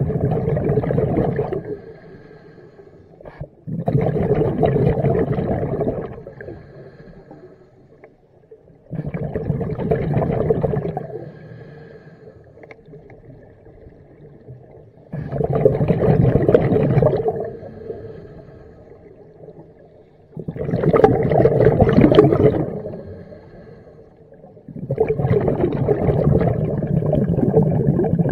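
A scuba diver's exhaled breath bubbling out of the regulator underwater: six gurgling bursts about five seconds apart, each starting suddenly and fading over about two seconds, with quieter stretches between breaths.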